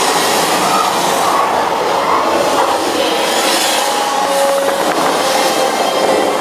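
Flight-simulator ride soundtrack: a loud, steady rush of wind and crashing water, with a few faint held music notes underneath.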